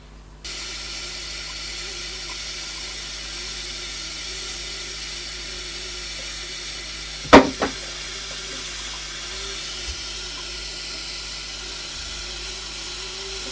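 Heat gun blowing hot air onto heat-shrink tubing: a steady hiss with a slightly wavering fan hum that switches on abruptly about half a second in and runs until the end. A single sharp knock about halfway through.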